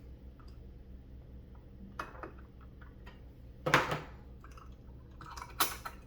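A few short handling knocks and clicks, the loudest about two-thirds of the way through, over a steady low hum.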